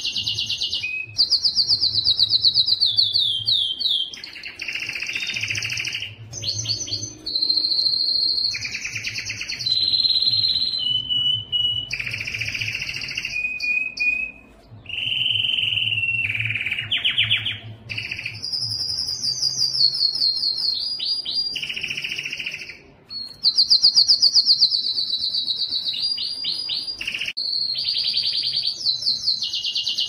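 Domestic canary singing a long, unbroken song of rapid trills and rolls, switching from one repeated phrase to the next every second or two.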